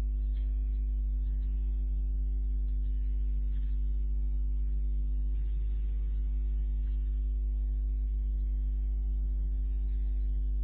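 Steady electrical hum with a buzz of evenly spaced overtones over a faint hiss, unchanging throughout.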